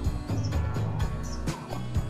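Background music with a steady beat of about two strokes a second over a bass line.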